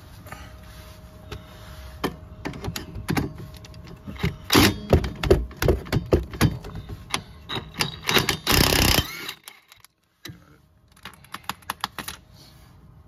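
Cordless impact wrench hammering on a rear sway bar link nut to break it loose while locking pliers hold the bolt: a run of short rattling bursts, then a longer burst of about a second. After a brief dropout, a few lighter clicks follow.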